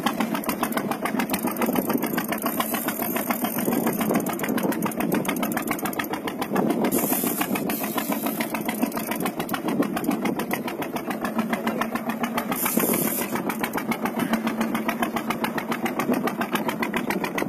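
Fishing boat's engine running steadily at idle, a fast even pulsing with a low hum. Two brief hissing noises come at about seven and thirteen seconds in.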